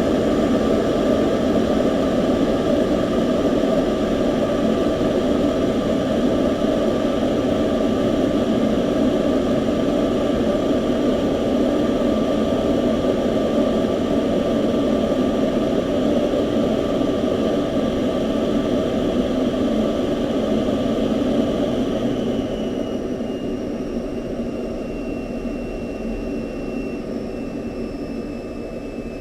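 Jet aircraft engine running steadily with a whine. Over the last several seconds it fades and its high tone falls slightly in pitch, as the aircraft moves away.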